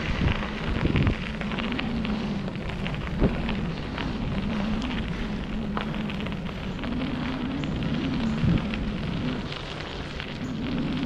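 Bicycle tyres rolling over a dirt and fine-gravel trail, a steady crackling crunch with the bike rattling, and a few sharp knocks as it hits bumps, over a low rumble from riding.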